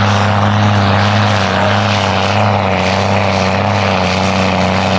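New Holland tractor's diesel engine running flat out under heavy load as it drags a tractor-pull sled: a loud, steady drone that holds one pitch.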